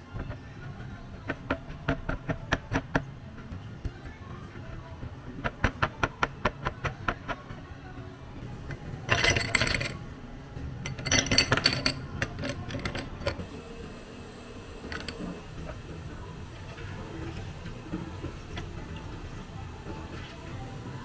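Clinking and clicking of glassware and drink-making utensils in quick runs, with two short rushing bursts about nine and eleven seconds in, over quiet background music.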